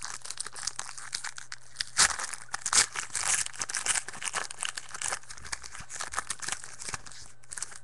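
Foil wrapper of a Press Pass football card pack crinkling and tearing as it is ripped open by hand, with the sharpest tears about two seconds in and just under three seconds in.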